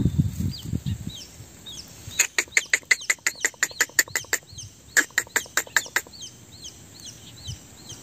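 Long-tailed shrike nestlings giving rapid runs of harsh begging calls, about seven notes a second: one run about two seconds in lasting some two seconds, and a shorter one about five seconds in.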